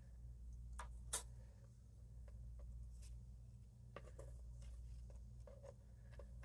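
Faint clicks and light taps of die-cut cardstock pieces and a pick-up tool being handled on a craft mat, with one sharp click about a second in, over a steady low hum.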